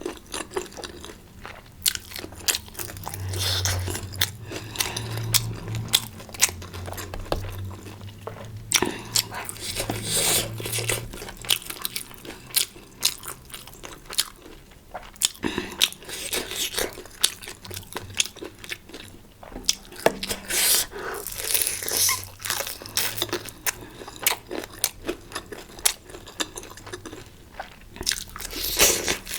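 Close-up eating sounds: a person chewing and biting food, with many quick, irregular crunchy clicks and wet bursts of noise.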